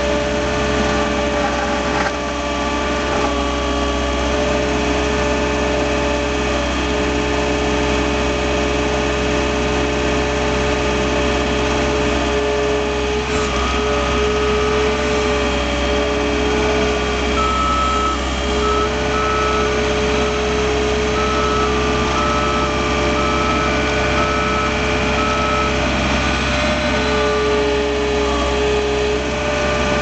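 2006 John Deere 320 skid steer loader's diesel engine running steadily while it pushes snow with a pusher blade, heard from the cab. In the second half its backup alarm beeps repeatedly for several seconds as the loader reverses.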